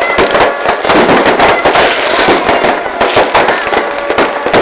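Fireworks going off in rapid succession: a dense, continuous crackling and popping of many small bangs with no pause.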